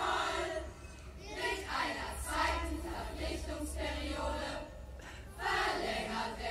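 Large choir of children and adults singing together in short phrases, with brief breaks between them.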